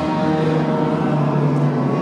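Slow, droning improvised chamber music: a steady low held tone under several sustained higher notes, with a vibraphone being played.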